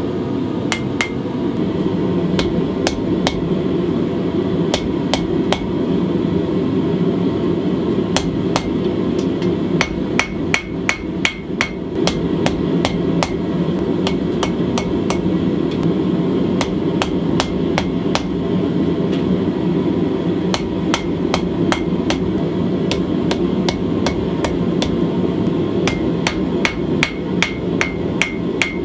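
Hammer blows on a Holland anvil, forging a 1/4 inch mild steel bar to a taper for a knife guard. The strikes come about one to two a second, with two quicker runs of ringing strikes, over a steady rushing noise.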